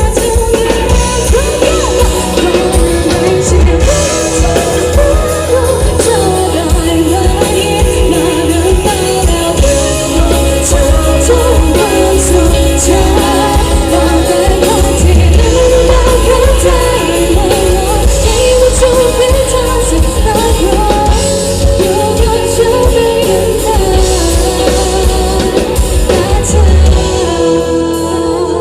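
A young woman singing a Thai pop song with band accompaniment and a steady heavy bass and drum backing.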